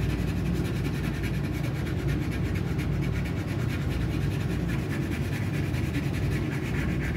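A red crayon scribbling on paper laid on a wooden tabletop, a steady rubbing scratch made of rapid back-and-forth strokes as a drawn mouth is coloured in.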